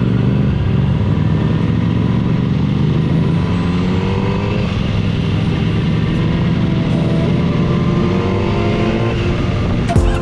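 Motorcycle engine running under way, its pitch rising several times from about four seconds in as it accelerates.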